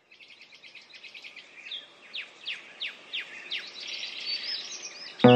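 Birds chirping and calling, fading in: first a fast run of high chirps, then a series of quick downward-sweeping whistled calls and warbling. Music comes in abruptly right at the end.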